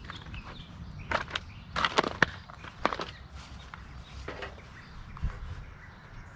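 Irregular knocks and clatters of demolition work, about ten sharp strikes, most of them bunched between about one and three seconds in, over a low background rumble.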